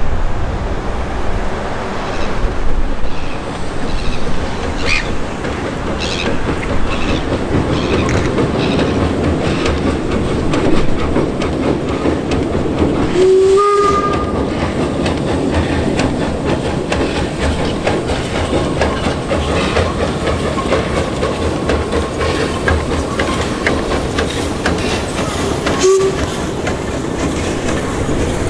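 Steam locomotive working past at slow speed, its exhaust beating about once a second, with one whistle blast about halfway through and a brief second toot near the end; then the carriage wheels clatter steadily over the rails.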